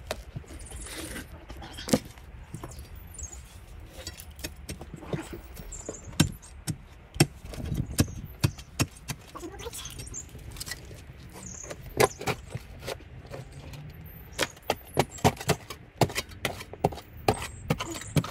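A spade digging by hand in a trench of stony soil: irregular sharp clinks and scrapes of the blade, some coming in quick runs.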